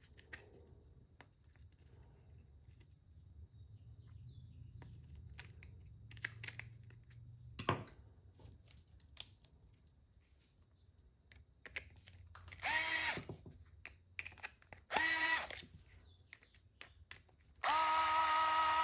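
Cordless power driver running in three short bursts, the last the longest, each winding down in pitch as the trigger is released, driving screws into the RC car's chassis. Light handling clicks and taps come before it.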